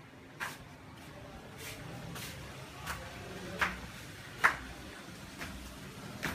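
Footsteps on a hard floor: a series of short, sharp taps, about one every half second to second, the loudest about four and a half seconds in, over a faint low room rumble.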